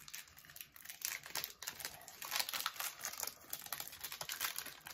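A candy bar's plastic wrapper crinkling and crackling as it is handled and opened, the crackles coming thicker in the second half.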